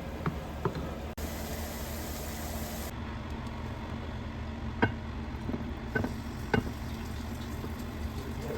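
Seasoned ground turkey frying in a pan, a steady sizzle as its soy sauce and juices cook off, with several sharp clicks of a utensil against the pan as it is stirred.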